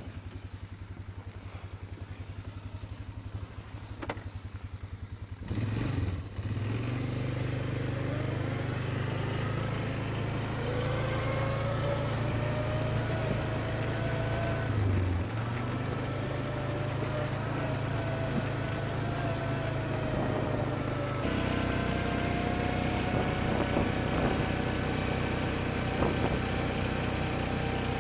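Small gasoline engine idling with an even chugging, then revved up about five seconds in and held running at a steady high speed, with a brief dip in the middle and a shift in tone later on.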